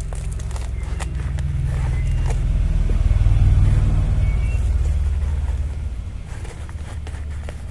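A low rumble that swells to its loudest about three to four seconds in and fades by about six seconds, with faint scrapes of potting soil being pressed down by hand.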